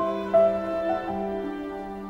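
Instrumental background music: a slow melody of held notes over a steady low note.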